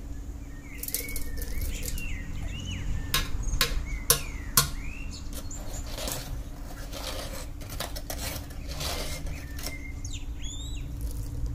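Foil lining of a tea box crinkling and rustling as a hand digs into the loose pearl green tea, with scattered sharp clicks and taps. The two loudest clicks come around the middle.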